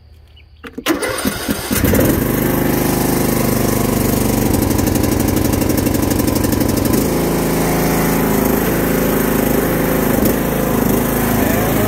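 Huskee 42-inch lawn tractor's engine cranked on the starter with the choke set, catching about two seconds in and then running steadily. Its running note changes about seven seconds in.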